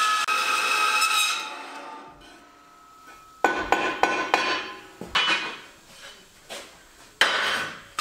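Horizontal metal-cutting bandsaw running with a steady whine that dies away and stops about two seconds in. Then a series of sharp metallic clanks, each ringing briefly, as steel square tube is handled on the saw.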